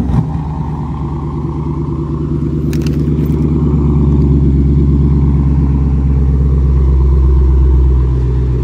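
Dodge Challenger R/T's 5.7-litre Hemi V8 idling through new quad exhaust tips just after a warm remote start: a deep, steady idle that grows a little louder over the first few seconds and eases down slightly near the end.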